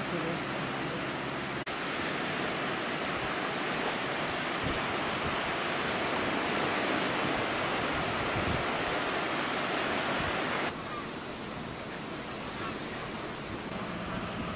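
Sea surf breaking and washing in, a steady rushing noise, with a low engine hum from the tractor in the surf during the first two seconds. The rush cuts abruptly to a quieter level about eleven seconds in.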